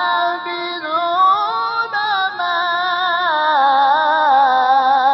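A man reciting the Qur'an in the melodic tajweed style, in maqam Nahawand, drawing out long ornamented notes with the pitch wavering and turning on each held vowel.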